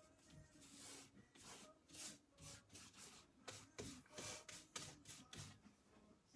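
Paintbrush rubbing paint across the painting surface in a quick series of faint strokes, about two a second.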